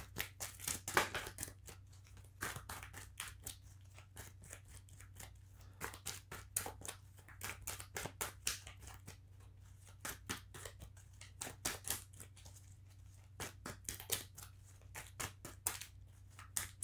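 A deck of laminated oracle cards being shuffled by hand: a stream of irregular papery flicks and snaps, in clusters with short pauses, over a faint steady low hum.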